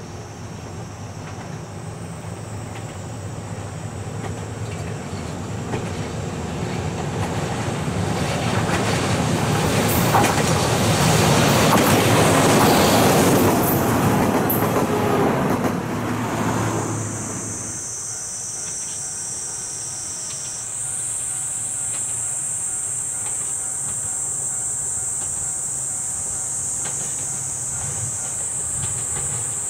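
Ohmi Railway electric train, set 821F, running past on the track. It grows steadily louder as it comes, is loudest a little before halfway, and dies away quickly about two-thirds of the way through. After that a steady high-pitched drone is left.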